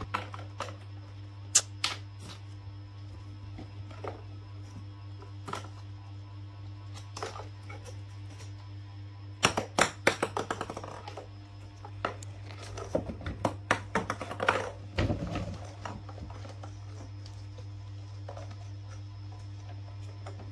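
Scattered light clicks and taps of handling as baby macaques shift about in a plastic toy dump truck and are handed eggs. There is a quick run of clicks about ten seconds in and more around thirteen to fifteen seconds, over a steady low hum.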